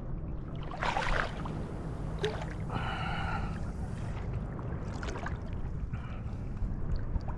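Shallow sea water sloshing and lapping around a wading angler, with two brief louder splashes, about a second in and about five seconds in.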